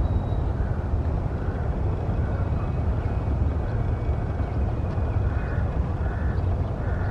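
Steady low rumble, with faint higher notes repeating about every two-thirds of a second over it.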